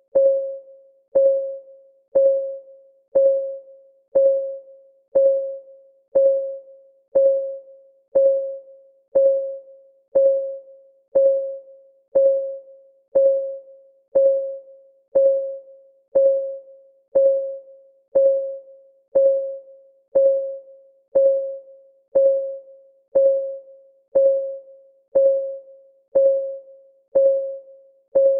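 Countdown timer's clock-ticking track: one short, ringing tick a second, each a soft mid-pitched note that dies away quickly, at an even, unchanging pace.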